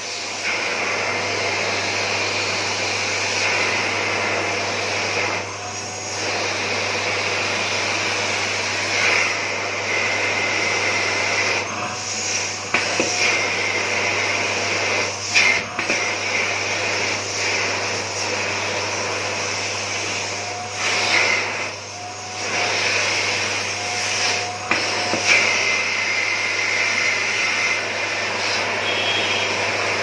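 Philips PowerPro Compact FC9352 1900-watt bagless canister vacuum cleaner running steadily at its minimum power setting while its small nozzle is worked over sofa upholstery. The suction sound dips briefly several times as the nozzle presses onto the fabric.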